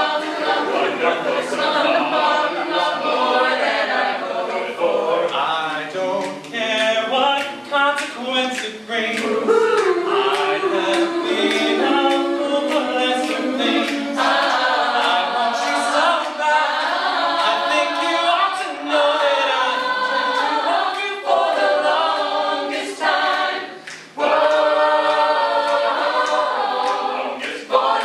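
An a cappella vocal group singing in close harmony, several voices and no instruments, with sharp percussive clicks through it and a brief break near the end.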